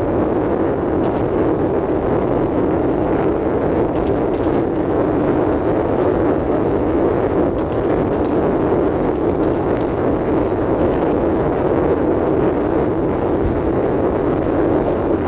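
Steady road and wind noise of a moving car, heard from inside the car.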